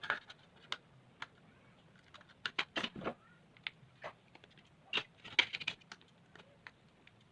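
Plastic clicks and snaps of a Xiaomi Redmi 2's back cover being opened and its removable battery fitted by hand: scattered short sharp clicks, bunched about two and a half seconds in and again around five seconds.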